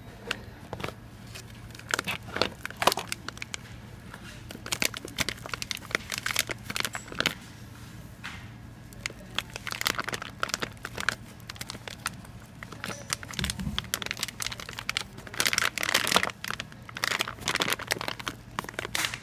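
Clear plastic bag crinkling as a hand handles it around a diesel pump head rotor: irregular crackles, loudest and busiest about three-quarters of the way through.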